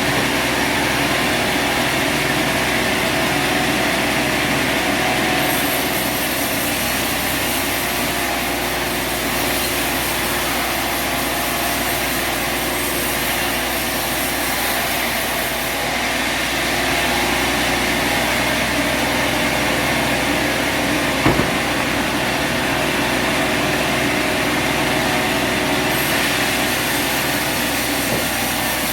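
A sawmill's engine running steadily, with one short knock about three-quarters of the way through.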